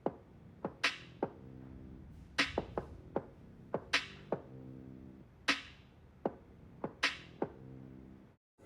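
Background music with a slow programmed beat: a sharp snare-like hit about every one and a half seconds, lighter hits between, over sustained low chords. It cuts out briefly near the end.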